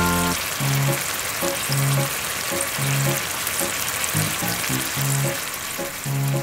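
Small rings of dough deep-frying in hot oil in a miniature metal wok, with a steady bubbling sizzle, over light background music of short repeating notes.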